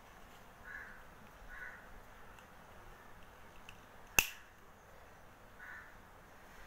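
One sharp plastic click about four seconds in, as Lego pieces are pressed together on a Wonder Woman figure.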